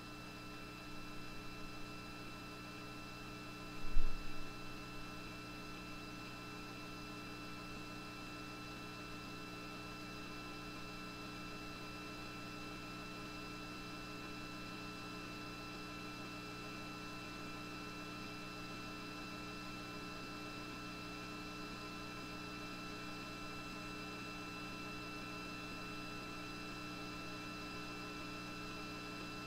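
Steady electrical hum and buzz on a live webcast's audio feed, with one brief low thump about four seconds in.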